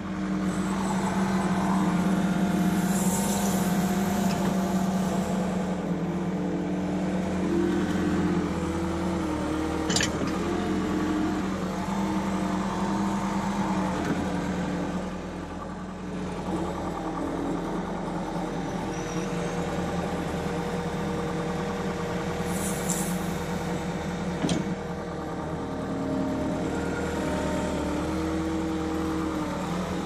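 Skid steer loader's engine running steadily from inside the cab as the machine drives and works its loader arms, its pitch shifting a little with load. Two sharp clunks and two short hisses break in along the way.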